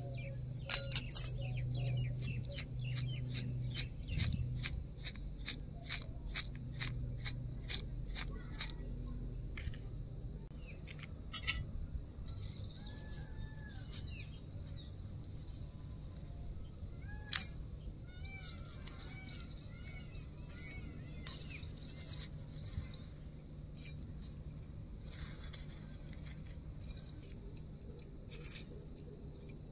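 Miniature steel spoon clinking and tapping against a small steel bowl while mixing dry poha chivda, about two or three taps a second for the first nine seconds, then occasional clinks, one louder about seventeen seconds in. Birds chirp in the background.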